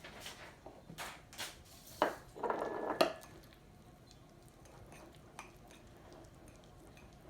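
A spoon tapping and scraping against a mug while stirring blueberries into muffin batter: several light clinks in the first three seconds, with a short scrape just before the last one.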